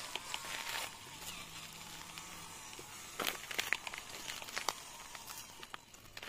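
Handling noises: crinkling and small sharp clicks, with a cluster of clicks about three seconds in and a few more a second or two later.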